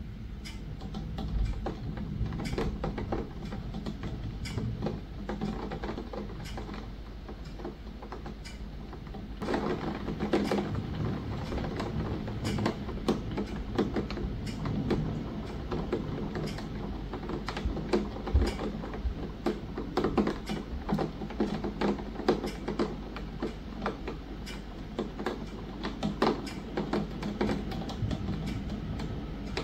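Rain shower, with raindrops tapping against a window in a dense, irregular stream of ticks. The rain gets heavier and louder about ten seconds in.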